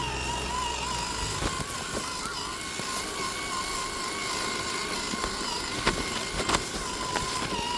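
Electric motor and geared drivetrain of an Axial SCX10 III RC crawler whining steadily as it drives, the pitch wavering slightly with throttle. Two sharp knocks come around six seconds in, likely the truck hitting rock.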